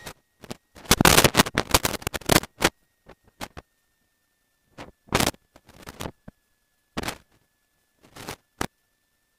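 Short bursts of static-like rustling noise that cut in and out, with dead silence between them and a faint steady high tone underneath. This is the pattern of a gated cockpit headset/intercom audio feed opening briefly on mic noise rather than on speech.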